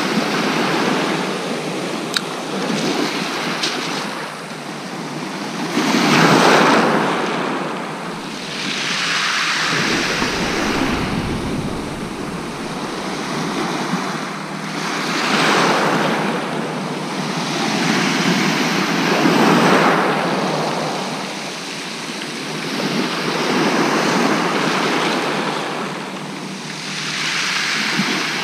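Small waves breaking and washing up and back over a shingle beach, the hiss swelling and fading every few seconds.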